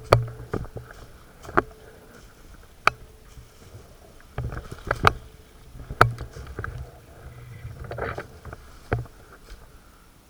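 Airsoft guns firing scattered single shots: about nine sharp cracks at irregular gaps of roughly half a second to a second and a half, several with a low thud under them.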